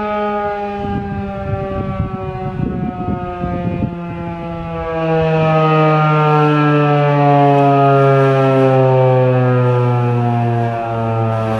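Federal Signal 2001-130 rotating electromechanical siren winding down at the end of its full alert cycle: one tone with its overtones sliding slowly lower. It swells louder about halfway through as the rotating horn turns toward the listener.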